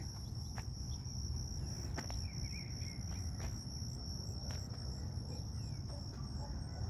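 Insects trilling steadily in a high continuous chorus, with a few brief bird chirps and faint clicks over a low background rumble.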